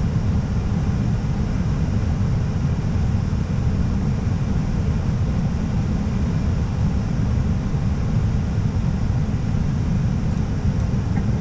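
Steady in-flight cockpit noise of an Airbus A320: a deep, even rushing of airflow and engines with a fainter hiss above it.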